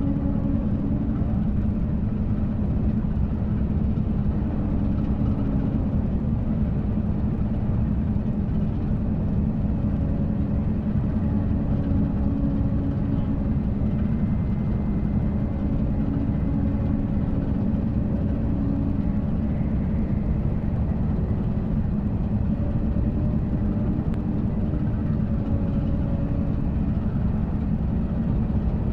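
Steady, loud low rumble like a heavy engine running, with faint hum tones that fade in and out and shift a little in pitch.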